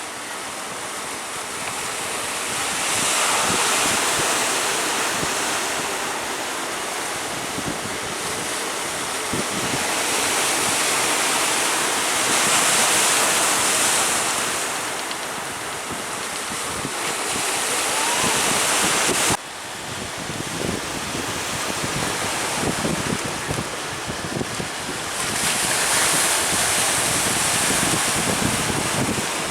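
Surf breaking in slow, loud swells a few seconds apart, with strong wind buffeting the microphone. The sound drops suddenly about two-thirds through, then builds again.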